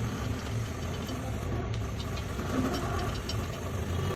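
Stick (arc) welding on steel square tube: the arc crackles steadily, with fine irregular ticks over a steady low hum.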